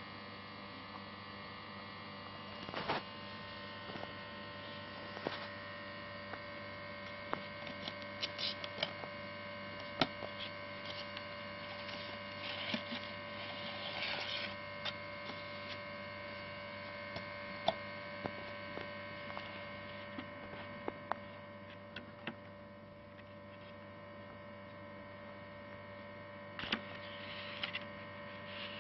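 Steady electrical hum with several fixed tones, broken by scattered small clicks and brief rustling, typical of items being handled while unboxing.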